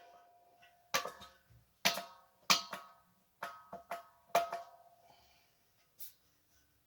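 Metal gas-stove parts knocking against each other and the stove, about ten sharp knocks in small clusters, each with a short metallic ring.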